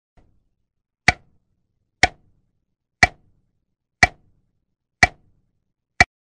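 Clock ticking: six sharp ticks, about one a second.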